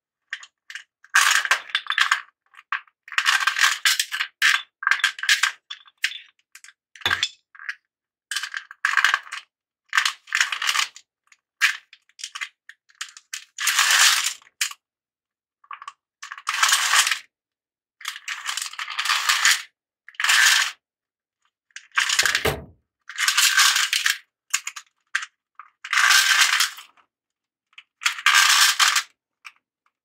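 Steel roller chain of a garage door opener rail rattling and clinking against the aluminium track as it is pulled out by hand, in repeated short bursts of about a second each. A dull knock comes about two thirds of the way through.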